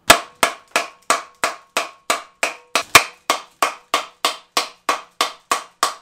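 A steady run of sharp knocks, about three a second, evenly spaced, with a faint ringing tone under the first half.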